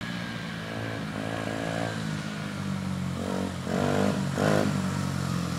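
Small 70cc Dirt Runner dirt bike engine running as the bike rides up the street, its note swelling a few times with the throttle and loudest about four seconds in.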